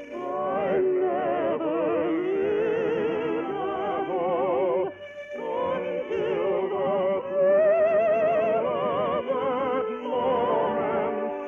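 Classical-style singing with strong vibrato over an orchestra, on an old radio broadcast recording with a narrow, muffled top end. The music dips briefly about halfway through.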